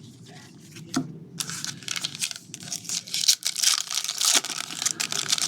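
Plastic trading-card pack wrapper being torn open and crinkled by hand, a dense run of crackling from about a second and a half in, after a single click.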